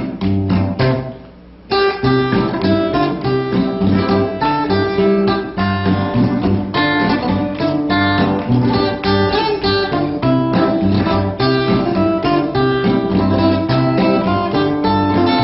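Background music: an acoustic guitar playing a quick run of plucked and strummed notes, with a brief dip about a second in before the playing picks up again.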